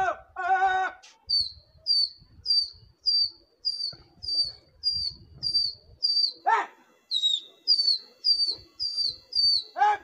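A small bird repeating a short, high, falling chirp at an even pace of about two a second. At about six and a half seconds, one louder and lower call cuts in.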